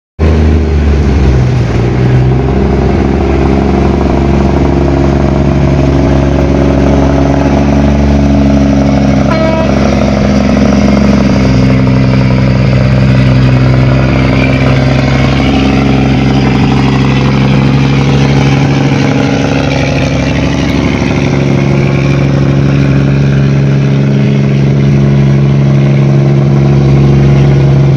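Diesel engine of a laden river cargo barge running under way as it passes close by: a loud, steady drone that shifts up in pitch about a second and a half in. Water rushes along its hull as it comes alongside, midway through.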